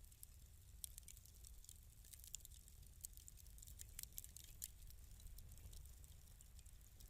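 Wood fire in a fireplace crackling faintly: irregular sharp pops and snaps, several a second, over a low steady rumble.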